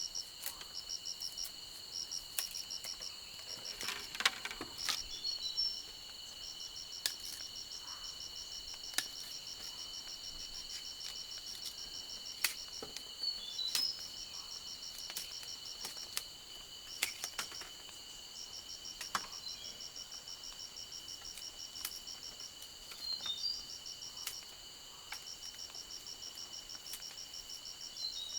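Rainforest insects: a steady high-pitched drone with rapid pulsed chirping in trains that stop and start every few seconds. A few short, falling three-note calls from another animal and scattered sharp clicks come over it.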